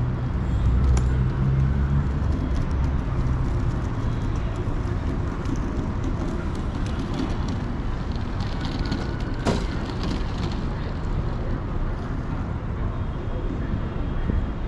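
City street traffic noise, steady, with vehicles passing. A low drone stops about two seconds in, and there is a single sharp click about halfway through.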